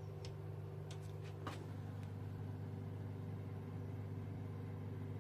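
A steady low mechanical hum, with a few faint light ticks in the first second and a half as a faulty torque wrench is turned under load. There is no clear click of the wrench breaking over: its click mechanism has failed.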